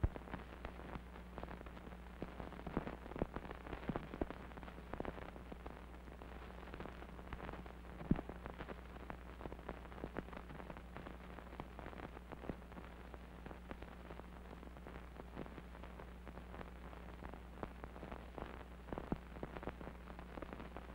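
Surface crackle and a steady low mains hum from an old film soundtrack, with scattered irregular clicks and pops over a stretch without speech.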